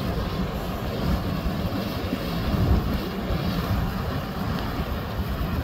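Tugboat's engine running and its propeller churning through broken ice: a steady, low rumble.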